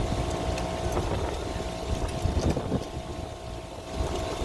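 Air compressor running steadily as it pumps air through its hose into a car's rear tyre, inflating it from about 35 toward 40 psi.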